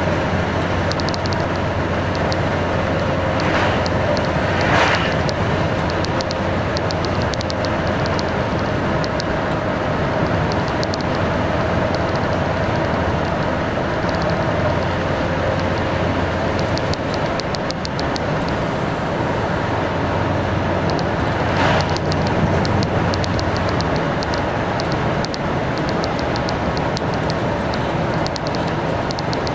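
Cabin noise of a heavy vehicle driving at road speed: a steady engine drone over tyre and road noise, with a light ticking rattle throughout. Brief louder rushes come about five seconds in and again past twenty seconds.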